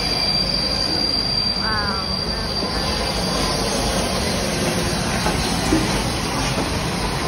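Southern Railway Merchant Navy class steam locomotive 35028 Clan Line and its train rolling slowly past along the platform as it arrives, a steady rumble of the engine and wheels. A thin high squeal, fitting wheel or brake squeal, fades out about two and a half seconds in.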